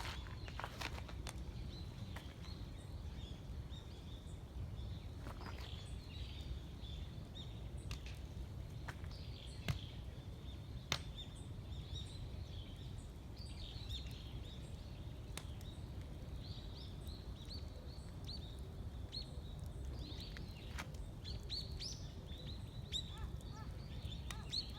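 Wood fire crackling in a drum-can burner, with scattered sharp pops, the loudest two near the middle, over a low steady rumble. Small birds chirp faintly throughout.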